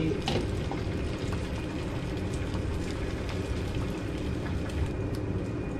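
Beaten egg sizzling gently in a buttered frying pan on low heat, stirred with chopsticks, with a few faint taps against the pan.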